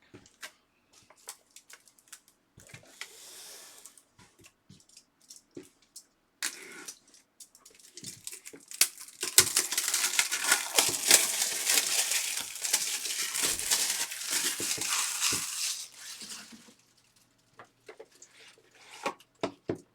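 Plastic wrapping being torn and crinkled while a trading-card box is opened, with scattered light clicks and rustles of handling; the dense crinkling runs from about nine to sixteen seconds in.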